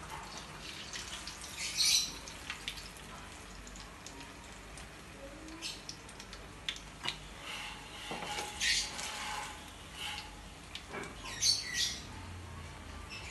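Metal tongs clinking against a steel wok as battered banana fritters are lifted out of hot frying oil, the stove just switched off. The oil gives short, high bursts of sizzling and crackling every few seconds.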